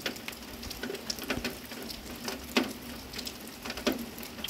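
Rain falling steadily, a continuous hiss with irregular drips tapping sharply on a hard surface every half-second to second or so.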